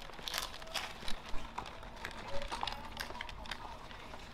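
Quiet indoor shop background: scattered faint clicks and rustles over a steady low hum.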